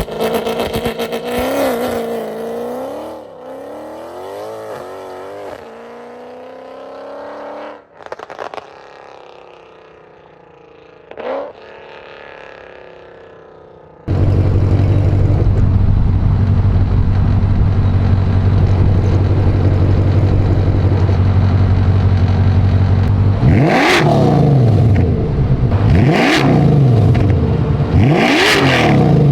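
Mercedes-Benz W204 C63 AMG's 6.2-litre V8 exhaust being revved, its pitch swinging up and down. About halfway through it cuts suddenly to a louder, steady low drone, and near the end there are three sharp rev blips.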